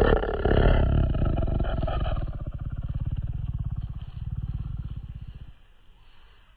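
Domestic cat purring loudly and roughly up close, a fast pulsing rumble that sounds almost like a growl or roar. It is harshest for about the first two seconds, then goes on more softly and stops about five and a half seconds in.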